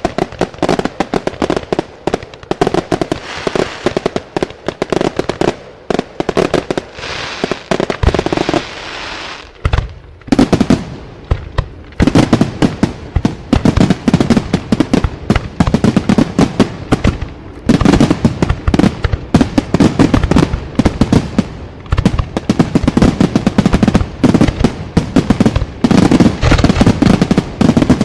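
Aerial firework shells bursting in rapid succession in a professional display, each bang followed by crackle and echo. After a brief lull about a third of the way in, the bangs come faster and louder, building toward the finale.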